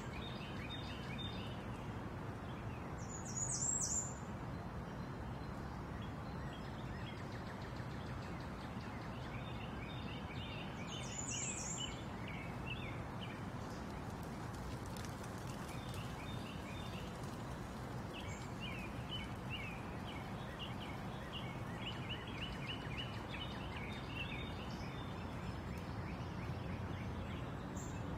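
Small birds chirping in short repeated runs over a steady background hiss of outdoor ambience, with a sharper, higher call standing out about three seconds in and again about eleven seconds in.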